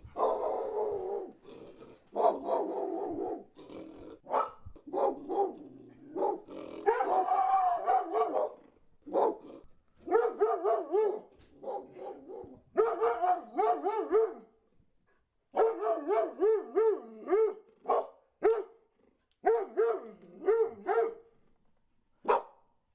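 Dog barking in a series of separate bursts with short gaps between them: longer drawn-out calls in the first part, then runs of quick barks several a second.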